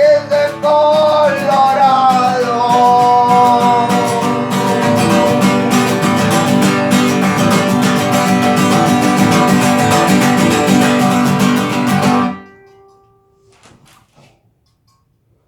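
The closing bars of a country song, played on strummed acoustic guitar, end abruptly about twelve seconds in.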